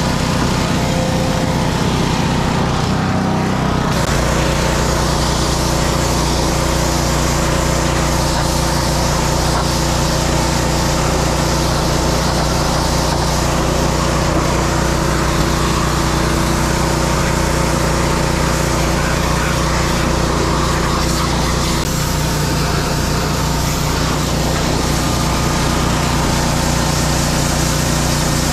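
Gas-engine pressure washer running steadily under load, its small engine droning beneath the hiss of the high-pressure water jet spraying wooden deck stairs. The engine note shifts about four seconds in.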